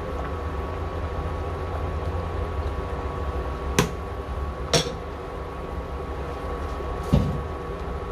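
Steady hum of an induction cooktop running under a simmering pot, with a spatula knocking sharply twice against the stainless steel pot about halfway through and a duller knock near the end.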